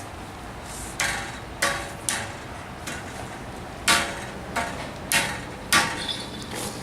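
A series of about seven sharp knocks or bangs at irregular intervals, each with a brief ringing tail.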